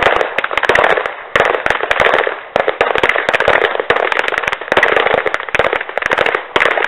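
Pistols firing rapidly, shots coming many per second and overlapping in strings a second or two long, with brief dips between strings.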